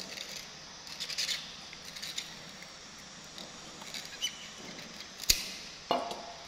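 Sparse crisp crunches and clicks of sugarcane being handled and eaten, the sharpest a little after five seconds in, followed by a short knock.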